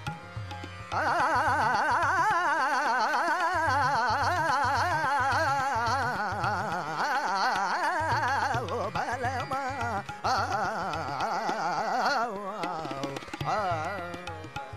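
Indian-style background music: a low drum beat under a high, wavering, ornamented melody that comes in about a second in and breaks off briefly a couple of times near the end.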